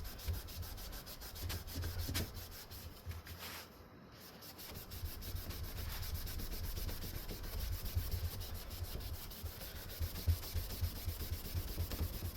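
A cleaning wipe scrubbing back and forth over a veneered Hunter Stratford ceiling fan blade, a continuous scratchy rubbing with a brief lull about four seconds in.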